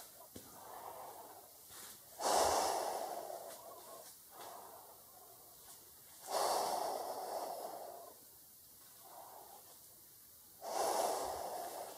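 A person breathing heavily close to the microphone: three loud breaths about four seconds apart, each starting sharply and fading, with quieter breaths between.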